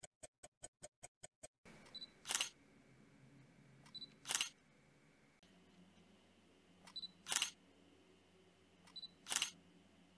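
Rapid ticking, about five ticks a second, for the first second and a half, then a camera shutter sound four times, each a short high beep followed by the shutter click, two to three seconds apart.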